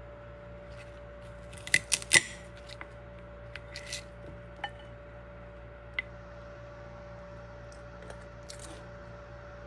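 Kitchen tools being handled: three sharp clacks close together about two seconds in, a short scrape, then a few scattered single clicks, over a steady faint hum.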